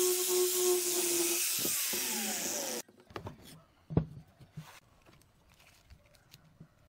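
Angle grinder with its disc sanding and shaping a pine block, its pitch falling in the last second or so before the sound cuts off abruptly about three seconds in. Then a single wooden knock as a block is set on the bench, followed by faint handling sounds.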